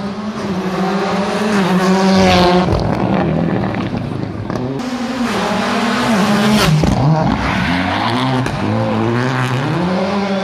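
A rally car's engine revving hard, its pitch climbing and dropping again and again with gear changes and lifts off the throttle. It is loudest about two seconds in and again past the middle.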